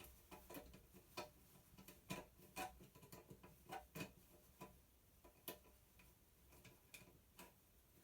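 Faint, irregular clicks and light taps of small cable connectors and hand tools being handled while cables are prepared for soldering.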